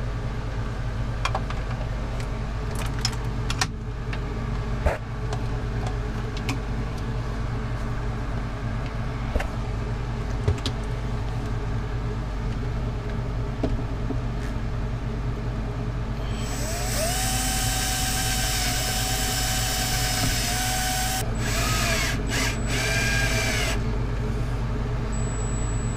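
DeWalt cordless drill/driver running steadily for about five seconds, then in several short trigger bursts that rise in pitch, driving in the screws of a fuse holder. Handling clicks and a steady low hum come before it.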